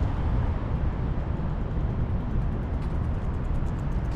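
Steady low rumble of city street noise and traffic, with faint quick light ticks in the second half.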